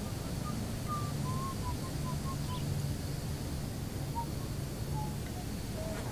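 A bird calling in short, high chirps: a quick run of notes about a second in, then a few scattered ones later, over a steady low hum.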